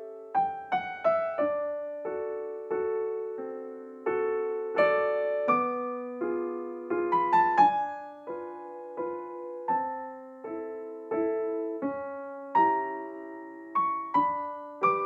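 Background piano music: a gentle melody of struck notes and chords, each note dying away after it is played.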